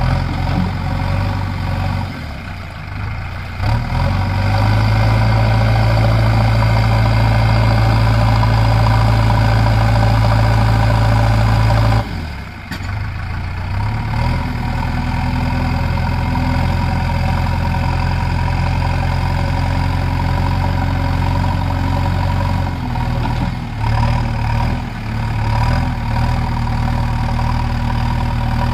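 JCB 3DX backhoe loader's diesel engine running steadily as the backhoe arm digs and lifts. The engine note is loudest for several seconds, drops off suddenly about twelve seconds in, and then runs on with small rises and falls.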